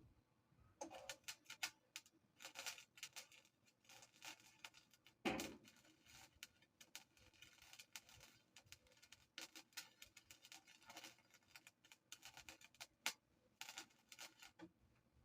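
Faint crackling from welding on a gas tank, in short bursts of about a second that stop and start several times, like a run of tack welds.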